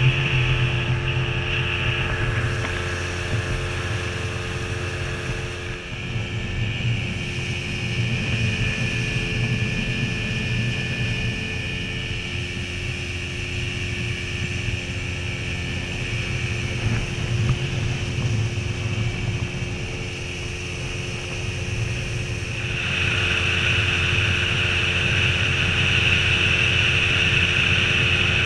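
Small speedboat's 40 hp outboard motor running steadily at speed, with the rush of wind and water spray past the hull. The hiss of wind and spray grows louder near the end.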